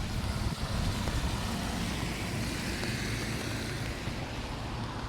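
Rain falling, with a car passing on the wet road: its tyre hiss swells to a peak about halfway through and fades away, over a steady low traffic rumble.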